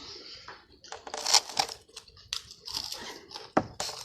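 Irregular crinkling and rustling handling noises in short uneven bursts, like packaging being crumpled or torn.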